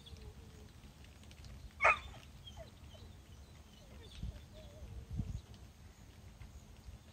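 A dog barks once, short and sharp, about two seconds in, with faint high whines now and then around it. Two dull low thumps follow a few seconds later.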